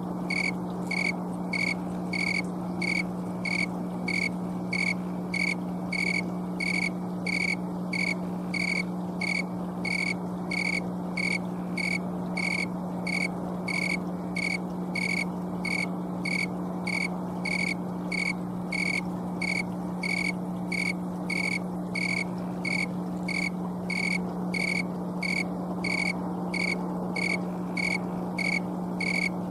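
Male snowy tree cricket (Oecanthus fultoni) chirping by rubbing its raised wings together, in a steady, even series of about two clear, pure-toned chirps a second, over a steady low hum. Its chirp rate tracks the air temperature.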